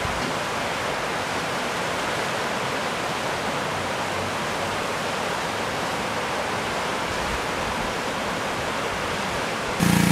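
Whitewater river rapids rushing over rocks in a steady, even roar of water. Near the end this cuts off suddenly to a louder, steady mechanical hum.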